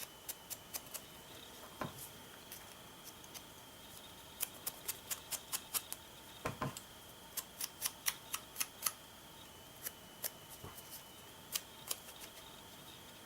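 Light, sharp taps of an ink sponge dabbing ink onto the edges of a small paper piece, in quick runs of several taps a second with short pauses. A couple of duller knocks are heard about 2 and 6.5 seconds in.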